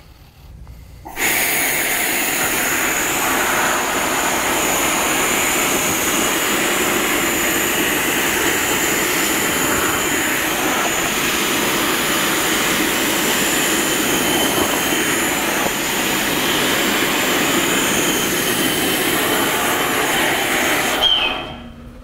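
EXAIR EasySwitch compressed-air-powered wet-dry vacuum switched on about a second in, running with a steady loud rush of air as it sucks up spilled water, then shut off near the end.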